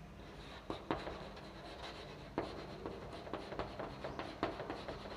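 Chalk writing on a blackboard: faint, irregular taps and short scratches as the chalk stick strokes out letters.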